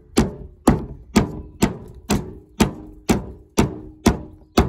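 A ball-peen hammer knocking again and again on the discoloured plastic neck of a radiator end tank, ten evenly spaced blows about two a second, each a sharp knock with a short ring. The plastic holds: despite its discolouration it is still strong, not brittle.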